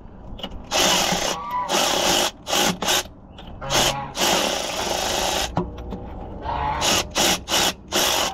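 Cordless electric ratchet spinning out a swing-bearing bolt in repeated short bursts, with one longer run in the middle, on the last of the bolts holding the excavator's swing bearing.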